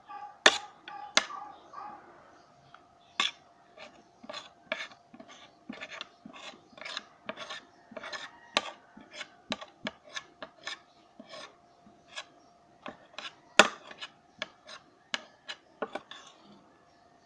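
Close-up eating sounds: an irregular run of sharp crunches and clicks, two or three a second, with a few louder snaps, over a faint steady hum.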